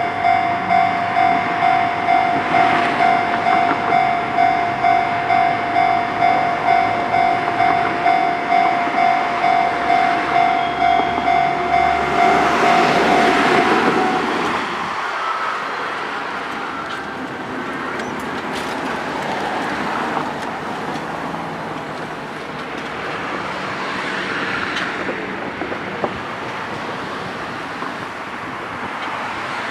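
Japanese level-crossing warning bell ringing in a steady clang at about two strikes a second, stopping about 14 seconds in. A KiHa 40 and KiHa 48 diesel railcar pair runs past; its noise swells just before the bell stops, then falls away to a lower rumble.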